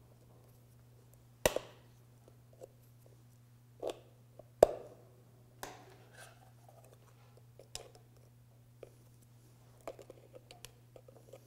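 Pliers prying up and bending back the sheet-metal tabs that hold the end cover on a ball-and-trunnion universal joint: scattered metal clicks and scrapes, with two sharp snaps about one and a half and four and a half seconds in. A faint steady low hum runs underneath.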